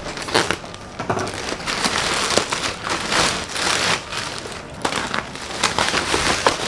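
Shiny black plastic wrapping crinkling and crackling as a parcel is pulled open by hand: a dense run of rustles and sharp crackles.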